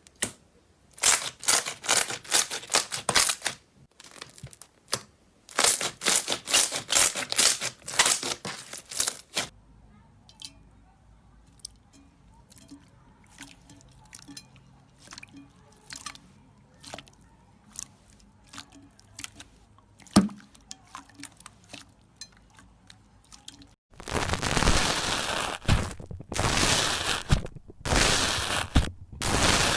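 Slime being squeezed and pressed by hand, giving bursts of crackling, popping clicks. Two dense runs of crackles come first, then scattered single pops, and a longer, louder run of crackling near the end.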